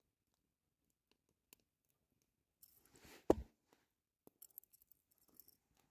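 Faint handling noises: small clicks and rustling from hands working a caught rainbow trout and fishing line close to the microphone, with one sharper knock about three seconds in.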